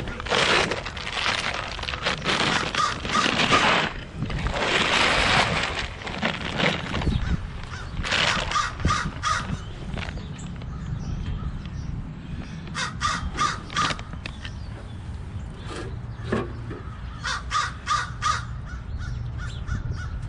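Bird calling in runs of about four quick calls, three times. Loud rustling, handling noise fills the first few seconds.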